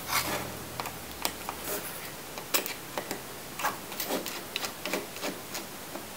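Irregular small clicks and light taps of a Phillips screwdriver and tiny screws, with small metal parts being handled, as screws are taken out inside an open MacBook Pro.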